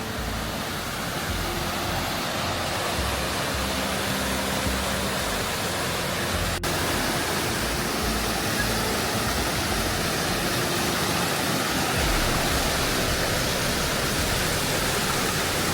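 Small waterfall rushing steadily, heard close at its base.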